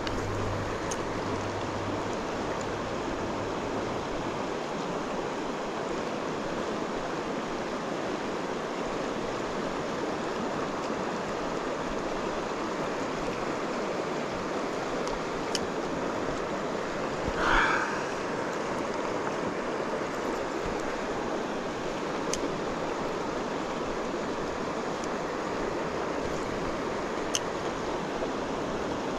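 River water flowing steadily, a continuous rushing noise. About two-thirds of the way in there is one brief louder sound, and a few faint clicks are scattered through.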